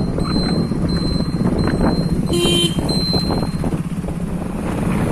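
Vehicle engine running steadily on the move, with wind buffeting the microphone. A short beep sounds about two and a half seconds in.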